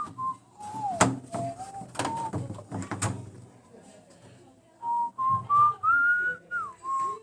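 A person whistling a tune, the notes stepping up and down in pitch, with three sharp knocks about a second apart in the first half.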